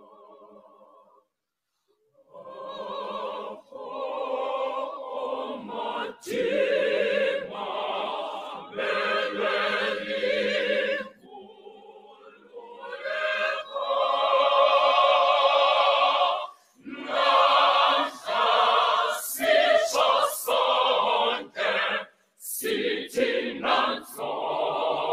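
Mixed school choir of girls' and boys' voices singing. A soft opening phrase is followed by a short pause about a second in, then the full choir comes in loudly, singing phrase after phrase with brief breaths between them.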